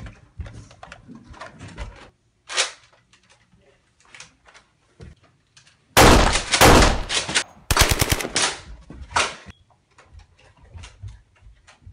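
Bursts of rapid machine-gun-style gunfire in a toy-blaster fight, loudest from about six to eight and a half seconds in, with scattered sharp clicks and knocks around them.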